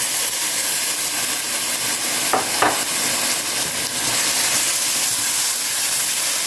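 Onions frying in hot oil in a pan, a steady sizzle, as ginger-garlic paste is added and stirred in with a spatula. Two brief squeaks a little over two seconds in.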